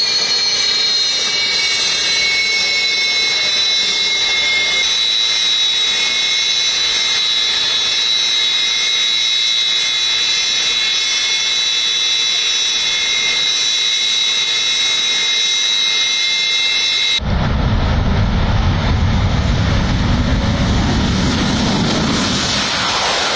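Sukhoi Su-30MKI fighter's twin turbofan engines: a steady high turbine whistle with a second, lower tone beneath. About 17 seconds in, the sound cuts to the loud, deep rushing roar of the jet taking off.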